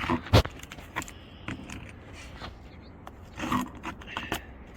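Scattered metal clinks, knocks and scrapes from a roof snake nail-removal tool worked under asphalt shingles and against roofing nails. The loudest knock comes about half a second in.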